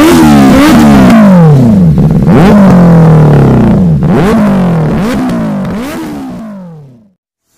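Benelli 600i's 600 cc inline-four engine revved hard several times, each throttle blip rising quickly in pitch and then falling away, loud through its under-seat exhaust. The sound fades out near the end.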